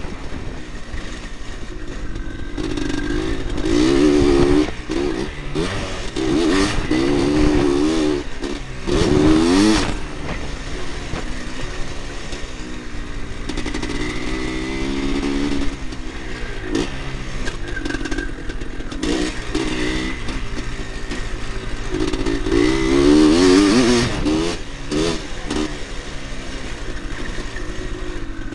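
Engine of a 1986 Husqvarna 400 motocross bike, heard from a camera mounted on the bike. The rider works the throttle hard, so the engine revs climb and fall back again and again.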